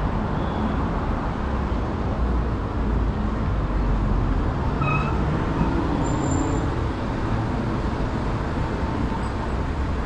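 Steady city-street traffic noise with a low rumble. A brief, faint high-pitched chirp comes about five seconds in.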